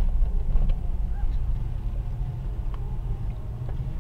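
Car driving, its engine and road rumble heard from inside the cabin as a steady low drone.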